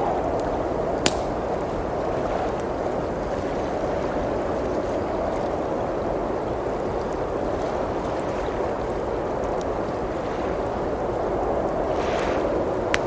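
Steady rushing blizzard wind with a crackling wood fire: a sharp pop about a second in, another near the end, and fainter crackles between.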